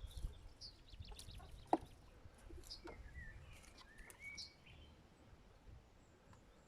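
Faint outdoor background with scattered short, high bird chirps and a couple of brief calls.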